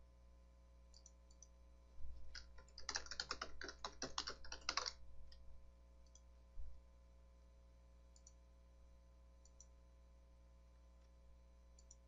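Typing on a computer keyboard, a quick run of keystrokes lasting about three seconds, with scattered single mouse clicks before and after it and a soft thump about halfway through.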